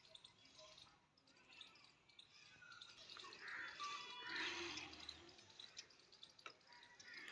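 Faint birds chirping, scattered short calls over quiet outdoor ambience, a little stronger in the middle.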